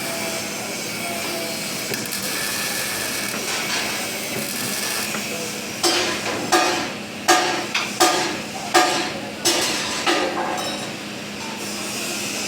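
Hammer striking steel about seven times in the middle, roughly one blow every two-thirds of a second, each blow ringing out, over steady workshop noise.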